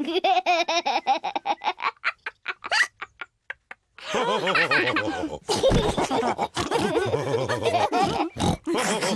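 Cartoon pig characters laughing and oinking. The laughter breaks into short fading bursts and stops about four seconds in, then starts again.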